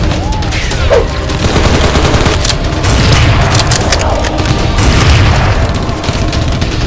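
Dubbed movie-style gunfire and explosion sound effects: rapid, continuous firing with booms, heaviest around the middle, over background action music.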